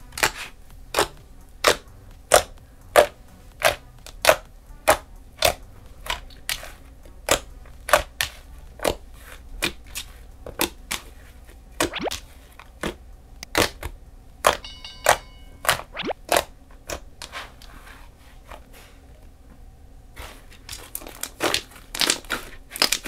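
Hand poking and squeezing a ball of fluffy slime made from glue and shaving cream, giving a run of sharp sticky clicks, about one or two a second, with a lull and then a quicker run near the end. A brief high tone sounds about fifteen seconds in.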